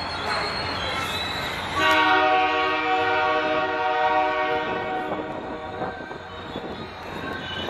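Railcars of the Canadian Pacific Holiday Train rolling past with steady wheel and rail noise. About two seconds in, a locomotive's multi-chime air horn sounds one long chord that lasts about three seconds.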